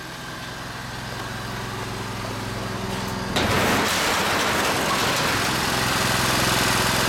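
Portable gasoline generator engine running steadily on wood gas from a gasifier under full load, a steady hum with a dense hiss of running vacuum cleaners over it. It is muffled at first, then suddenly louder and brighter about three and a half seconds in as a door opens to the outside.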